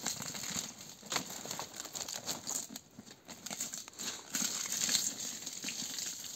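Broad okam leaves and split bamboo strips rustling and crinkling as they are handled and tied into a bundle, with irregular small crackles throughout.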